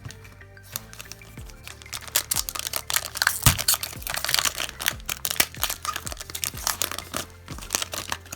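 Foil wrapper of a Pokémon TCG booster pack crinkling and tearing as it is opened by hand, with background music playing.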